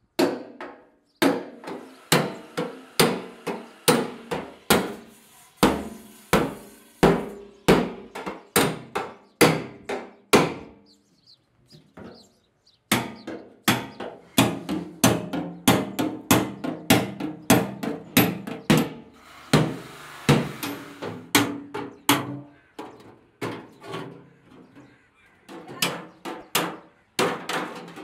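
Hammer striking a chisel to cut the end off an empty steel oil drum: a run of sharp metallic blows with short ringing, about two a second, pausing briefly around the middle.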